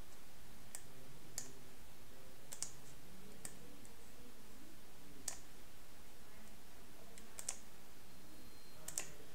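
Computer mouse clicking: about eight short, separate clicks at irregular intervals over faint room tone.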